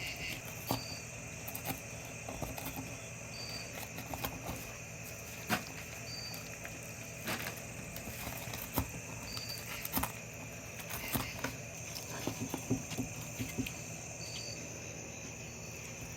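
Knife cutting and scraping along a longnose gar's back to free the backstrap fillet: scattered small clicks and taps over a steady low hum. A short high chirp recurs every few seconds.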